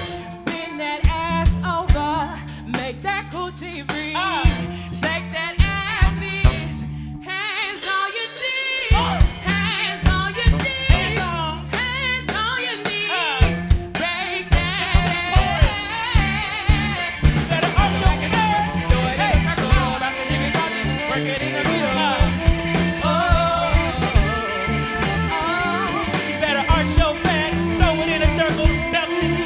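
Live band playing an upbeat pop-gospel-jazz number: drum kit and bass driving under a wavering lead melody, with a brief stop in the low end about seven seconds in.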